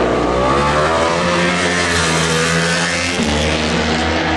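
Racing vehicles' engines running at speed along the circuit, loud and continuous, with the engine note falling in the first second as one goes past and changing again about three seconds in.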